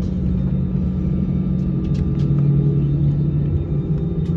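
An airliner's jet engines running, heard inside the passenger cabin: a steady low hum made of several held tones.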